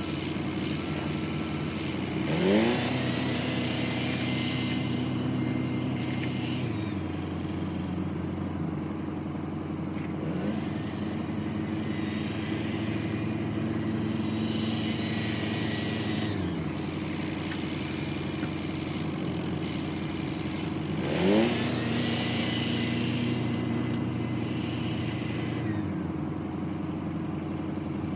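Diesel engine running steadily, its speed rising and falling several times: sharp rev-ups about two seconds in and again about twenty-one seconds in, each held a few seconds before dropping back.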